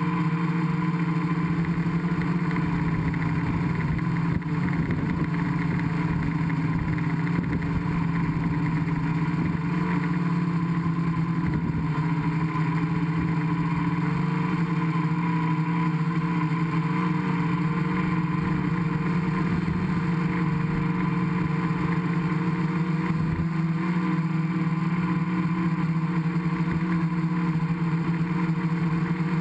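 Gaui 500X quadcopter's electric motors and propellers droning steadily in flight, heard from its onboard camera, with wind rumble on the microphone.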